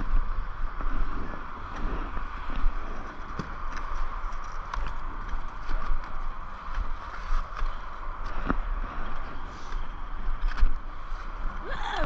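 Steady hiss with a flickering low rumble and scattered knocks: movement and handling noise from a skier's body-worn camera while shuffling onto a chairlift.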